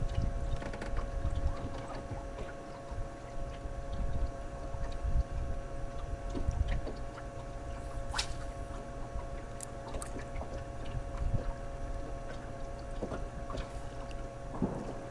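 Water lapping and sloshing against a bass boat's hull, with a steady faint whine underneath and scattered light clicks.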